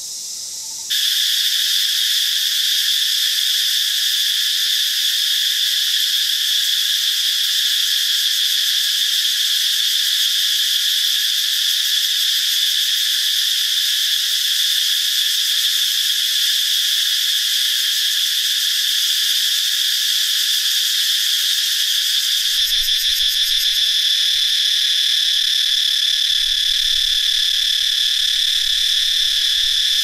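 Cicadas singing: a loud, steady, shrill buzz that starts abruptly about a second in and holds without a break.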